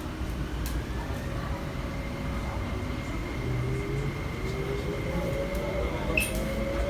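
Inside the cabin of an MTR SP1900 (IKK-Train) electric multiple unit accelerating, its traction motor whine rising in pitch over the rumble of wheels on rails. A short high squeal comes about six seconds in.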